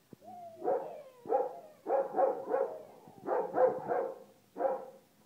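Samoyed puppy yapping in short, high barks, about nine of them, several in quick runs of three, after a brief whine near the start.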